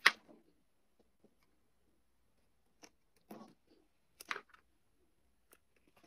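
Hand-held wire stripper pliers clicking and snipping on thin insulated wire: a few short, sharp snips and clicks, one at the very start and others about three and four seconds in, with quiet gaps between.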